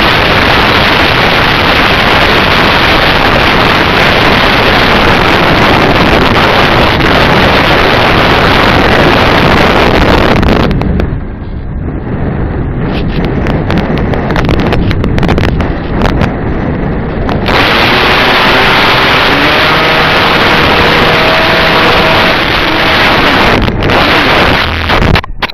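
Loud steady wind and propeller rush picked up by a camera riding on a radio-controlled flying wing in flight. About eleven seconds in, the rush drops and breaks up into uneven noise for several seconds, then comes back. Near the end a sharp knock sounds as the plane hits the ground.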